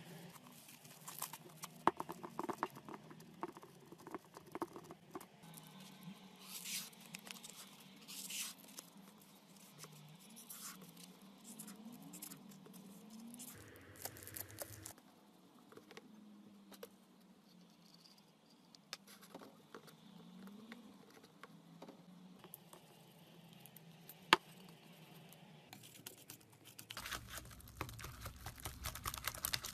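Hands stretching and squeezing white fluffy slime, with soft crackling and small sticky pops; later a spoon stirs a wet slime mixture in a glass bowl, the crackling louder and denser near the end. One sharp tap stands out about two-thirds through.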